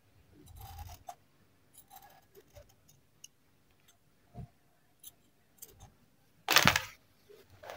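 Fabric scissors snipping through folded cloth in a run of short, irregular cuts, trimming a curved edge on a baby-frock bodice piece. About six and a half seconds in comes a louder brief rustle, the loudest sound, as the cloth and scissors are handled.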